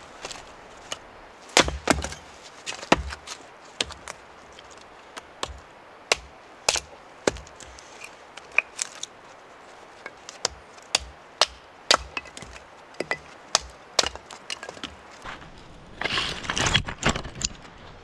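Wood cracking: irregular sharp cracks and snaps, roughly one or two a second, some with a dull knock underneath. A denser spell of cracking and rustling comes near the end.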